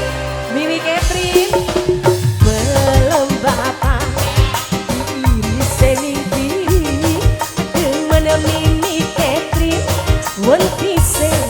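Live tarling dangdut band music: a steady drum beat under a wavering melody line.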